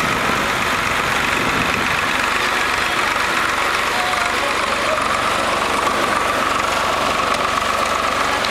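Farm tractor's diesel engine running steadily at a constant speed, with a fine, even chug of firing pulses.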